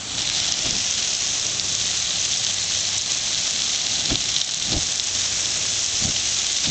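Garden hose water spraying onto a burning bee hive, a steady hissing rush of spray with sizzle that starts suddenly.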